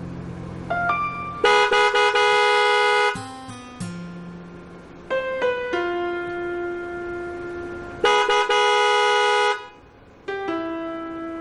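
A car horn gives two long, steady honks of about a second and a half each, the first about a second and a half in and the second about eight seconds in. Each stops abruptly. Between them, background music plays with sustained piano-like notes.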